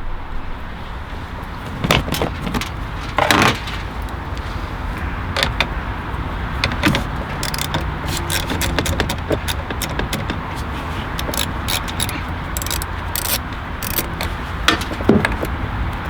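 Scattered metallic clicks, clinks and rattles of hand tools and car parts, with a short scrape about three seconds in, as a car battery terminal is undone to disconnect the battery.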